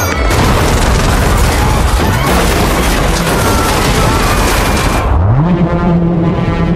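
Film destruction sound effects: a dense, loud roar of rumbling and crashing for about five seconds, then a deep droning tone that swoops upward and holds.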